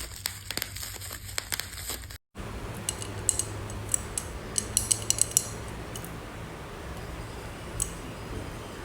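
Light clinks and taps of glassware and kitchen utensils being handled over a steady low hum, with a cluster of clinks a few seconds in and one more near the end.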